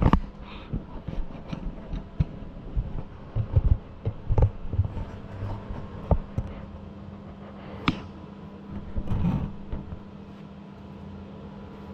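Irregular knocks, clicks and thumps of things being handled, over a steady low hum; the knocks thin out after about ten seconds, leaving the hum.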